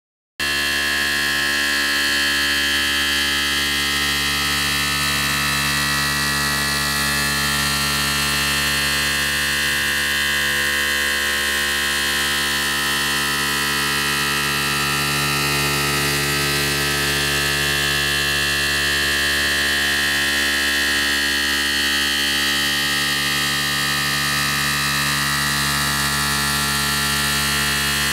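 Tormach CNC mill cutting aluminium plate with a 3/4-inch Shearhog cutter on an adaptive toolpath at 4,000 RPM: a loud, steady machining hum of many tones over a high hiss.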